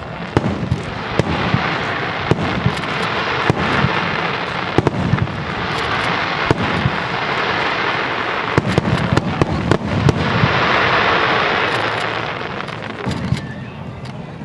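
Fireworks display, shells bursting in quick succession: many sharp bangs and deep booms. Two long swells of hiss build and fade, one a few seconds in and one about ten seconds in.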